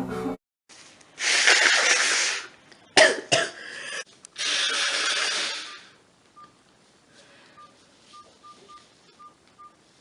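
A woman blowing her nose hard: two long, hissy blows, the second longer, with a few sharp knocks between them. Faint short pips follow.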